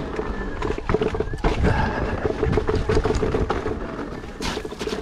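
Riding noise from an electric unicycle rolling over a rough dirt trail: a steady low rumble of wind and ground noise on the action-camera microphone, with scattered knocks and rattles.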